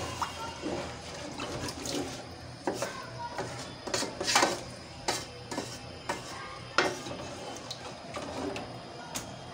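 A spatula scraping and knocking against a metal pot as a wet spice masala is stirred and fried, with irregular sharp knocks.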